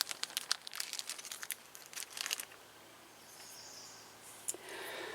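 Small plastic Ziploc bag crinkling as it is handled, with dense crackling for about the first two and a half seconds, then fainter rustling.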